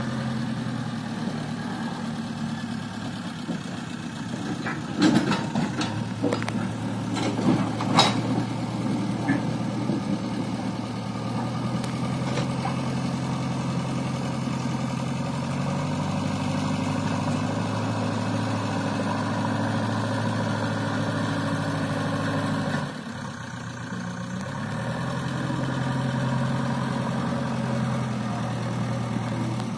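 JCB 3DX backhoe loader's diesel engine running under load while it works its front loader bucket, the engine speed stepping up and down. There are several sharp knocks between about five and eight seconds in. About three quarters of the way through the engine drops back, then picks up again.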